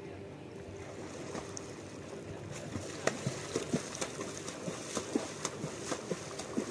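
Open-air river ambience: a steady hiss of wind and water. From about two and a half seconds in, a run of sharp, irregular clicks comes roughly two or three times a second.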